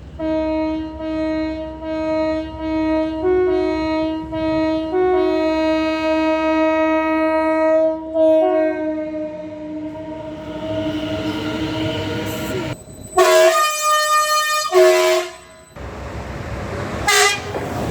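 British railway locomotive horns. A run of pitched horn notes, a few short ones and then a long held one with brief higher notes in between. Then comes a rushing train, a loud two-tone horn blast of a little over two seconds about thirteen seconds in, and a short blast near the end.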